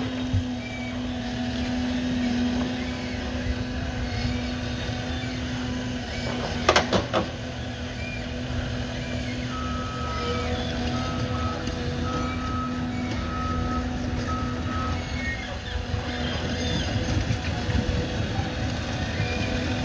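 A John Deere forestry harvester runs steadily, its diesel engine and hydraulics droning as the crane works the harvester head. A few sharp knocks come about seven seconds in, and a thin pulsing high tone sounds from about ten to fifteen seconds in.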